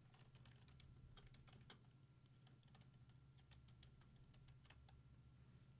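Faint typing on a computer keyboard: a run of quiet key clicks, most closely packed in the first couple of seconds, over a low steady hum.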